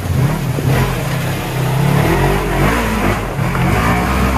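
Polaris RZR four-seat side-by-side engine revving up and down under load as it climbs over rock ledges out of a creek bed.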